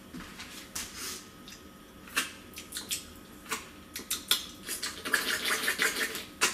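Mouth sounds of someone eating a frozen strawberry-yogurt popsicle: wet licking, sucking and smacking as it goes into the mouth, heard as a string of short sharp clicks that come thicker toward the end.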